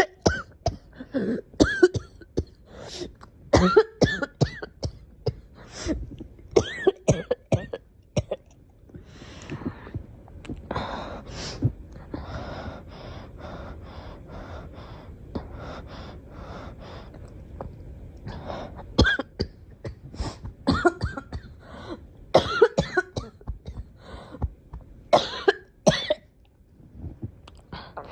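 A girl coughing in repeated fits of several sharp coughs each. In the middle there is a quieter stretch of quick, evenly spaced short coughs.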